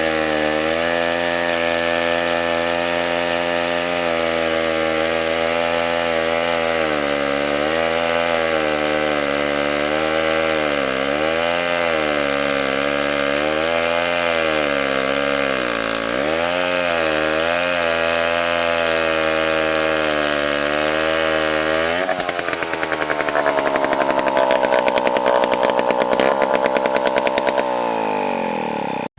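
1953 Monark Silver King chainsaw running hard, its engine note sagging and picking back up again and again as it is worked through a log. A little past two-thirds of the way the note changes to a higher, rapidly pulsing run.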